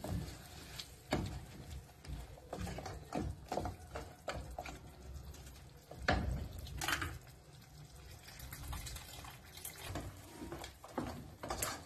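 Wooden spatula stirring chunks of beef through a thick, wet tomato sauce in a nonstick pot: wet, sloshing stirring with scattered scrapes and soft knocks against the pot.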